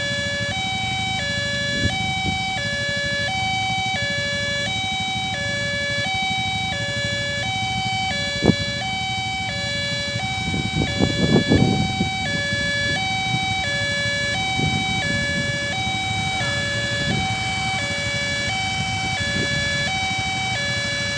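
Railway level-crossing warning alarm sounding from the crossing's loudspeaker while the barriers are down for an approaching train: an electronic signal that switches steadily back and forth between two notes, each held about a third of a second, over a steady high tone. About halfway through there is a sharp knock, followed by a short burst of louder noise.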